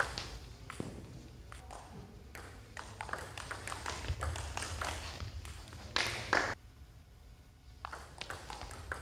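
Table tennis rally: the celluloid ball clicks sharply off the paddles and the table in a quick, irregular series. A louder pair of strikes comes about six seconds in, then a short lull, and the clicking starts again near the end.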